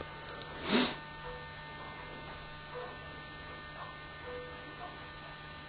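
Steady electrical mains hum with a few faint steady tones above it, and one short breath-like noise under a second in.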